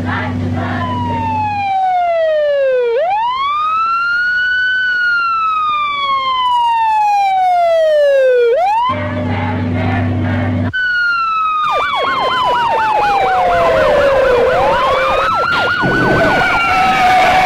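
Fire engine sirens on a Code 3 run. A wailing siren glides slowly down in pitch, shoots back up and glides down again. About two-thirds of the way in, a fast yelping siren, about four warbles a second, overlaps a second wail, with rising engine and road noise. A steady low drone sounds at the start and again briefly midway, between the sweeps.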